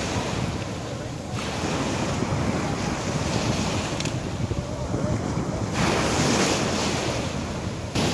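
Small waves breaking and washing up a sand-and-pebble shore, their hiss swelling again about six seconds in, with wind rumbling on the microphone.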